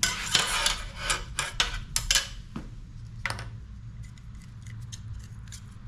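Metal clinking and scraping as steel pieces and tools are handled: a quick run of sharp clinks in the first few seconds, then a few faint light ticks, over a low steady hum.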